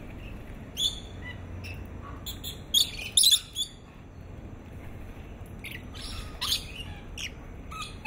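Rainbow lorikeets giving short, shrill screeches here and there. The loudest come in a quick run about three seconds in, with another group a few seconds later.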